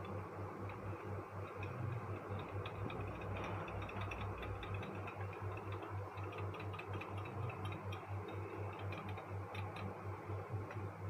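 Faint, light clicking and ticking of medicine powder being stirred into a bowl of hot water, over a steady low hum.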